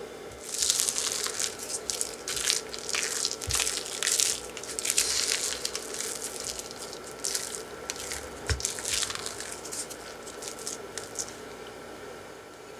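A spatula folding flour into a thick cream cheese batter in a glass bowl. It makes repeated, irregular crunchy scraping and squishing strokes as the dry flour is worked into the dough. The strokes stop about eleven seconds in.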